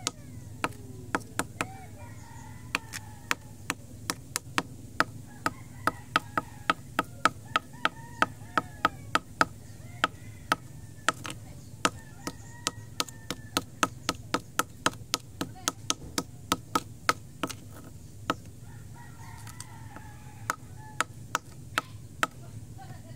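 Rapid sharp taps of a hard tool striking a concrete surface as ticks are crushed one after another, about two or three a second, stopping briefly near the end before a few more taps. Chickens cluck faintly in the background.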